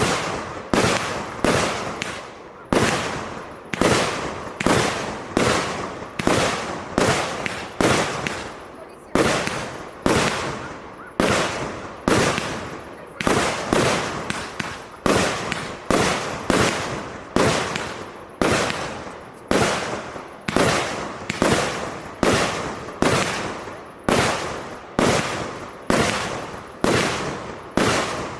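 A 192-shot, 30 mm consumer fireworks cake firing shot after shot at a steady pace of about one and a half a second, each a sharp bang that trails off before the next.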